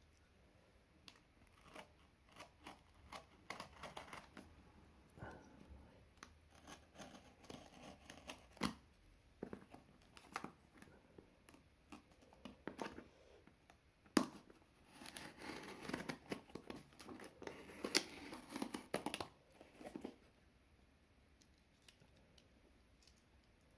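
A box cutter scratches and clicks as it slits the packing tape on a cardboard shipping box. About two-thirds of the way in comes a louder stretch of tearing and scraping as the taped cardboard flaps are pulled open.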